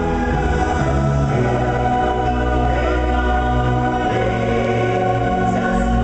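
A woman singing a slow ballad into a microphone over musical accompaniment with long held low notes.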